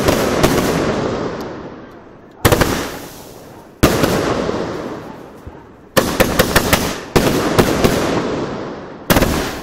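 Aerial fireworks bursting one after another, six in under ten seconds. Each burst is a quick run of sharp bangs and cracks followed by a rumble that fades over a second or two.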